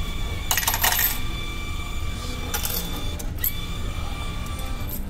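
Change coins clattering into the return tray of a meal-ticket vending machine, a burst of metallic clinks about half a second in and a few lighter clinks later, over a steady low hum.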